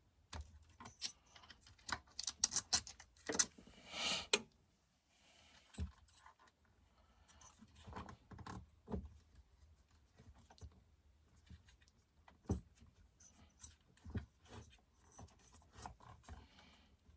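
Metal tools and chainsaw parts clicking and clinking as a Stihl MS261C chainsaw is taken apart by hand, with a busy cluster of clinks and a short hiss-like burst about four seconds in, then scattered knocks.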